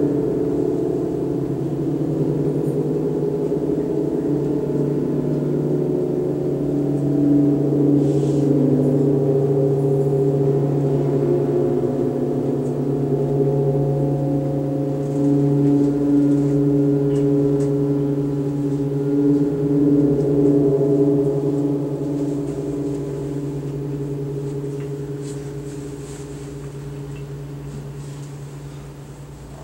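Large Paiste gongs being played: a sustained, wavering wash of deep overlapping tones that swells several times, then slowly dies away over the last several seconds.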